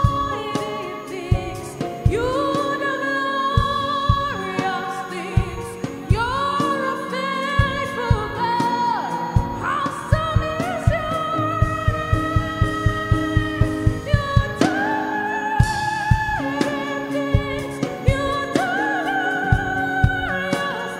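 Gospel worship music: a singing voice holding long notes and sliding between them over sustained chords, with a low beat that grows quicker in the middle.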